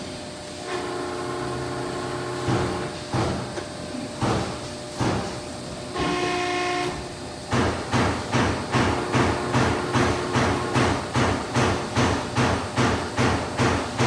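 Cincinnati 230-ton CNC hydraulic press brake running: a pitched whine sounds twice, then from about halfway a steady, even knocking sets in at about two and a half knocks a second.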